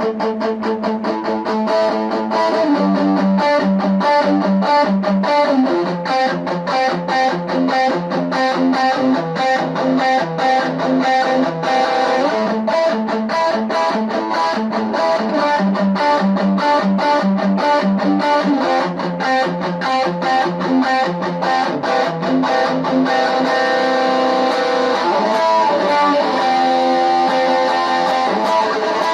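Electric guitar played through a custom Fender-branded combo amp with the gain at full and the tone switch on treble, giving a heavily distorted tone. The notes are picked quickly and evenly in a continuous riff.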